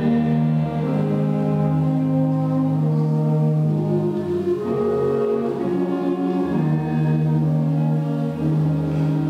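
School concert band playing long held chords, with brass most prominent, changing every second or two.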